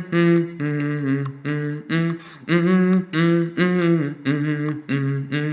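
Song intro: a wordless hummed vocal melody in short separate notes, about two a second, over a light ticking beat.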